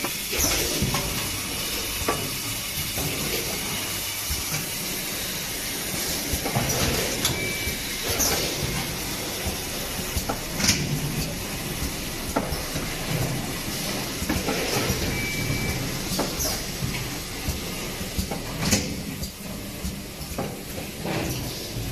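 Automatic sealing and capping machines of a packing line running, with a steady mechanical noise. Sharp hisses and clacks come every couple of seconds. Two short high beeps sound near the middle.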